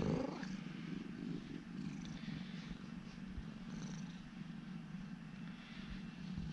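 Grey tabby domestic cat purring steadily, close up, while being stroked.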